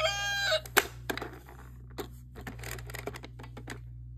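The tail of a toy's electronic rooster crow ending in the first half second, then scattered clicks and taps of plastic toy pieces being handled.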